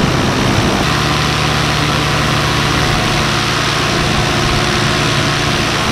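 Paramotor engine and propeller running steadily in flight, over a steady rush of wind; the engine note shifts about a second in.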